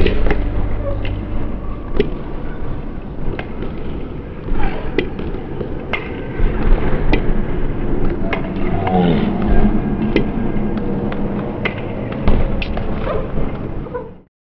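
Table tennis ball clicking off the bats and the table, sharp clicks every half second to a second, over steady hall noise. The sound cuts off suddenly near the end.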